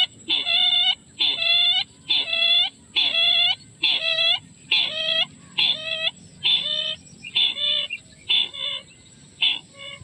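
Repeated calls of the sintar, a rail or crake: a nasal, ringing note about once a second, each starting high and settling into a level tone. The calls grow fainter and shorter over the last few seconds. A thin, steady high whine runs underneath.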